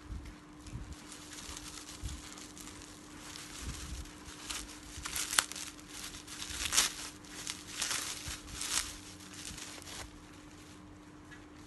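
Plastic packaging crinkling and rustling as it is handled and opened, with irregular sharp crackles that are loudest in the middle; a faint steady hum runs underneath.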